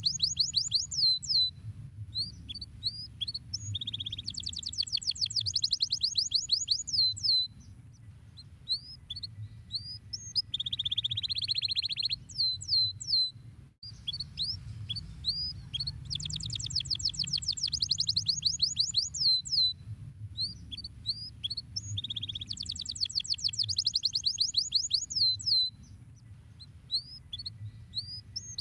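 Domestic canary singing long phrases of fast, high trills and quick downward-sweeping notes, broken by buzzy rolls lower in pitch, over a steady low background rumble. The song breaks off briefly about halfway through, then starts again.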